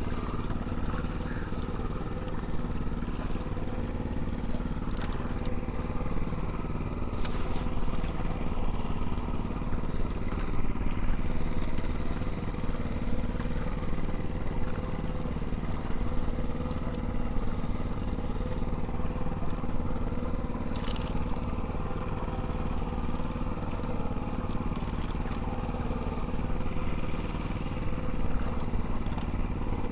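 Small engine running steadily at an even speed, most likely the motor of a small fishing boat.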